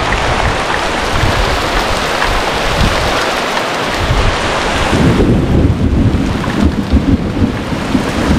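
Heavy rain and wind noise on the microphone. About five seconds in, the hiss drops away and an uneven low rumble takes over, heard as thunder.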